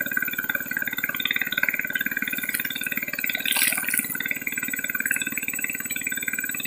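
A small engine running steadily with a fast, even pulse, under a high, wavering chirping. A short hiss-like sound comes about three and a half seconds in.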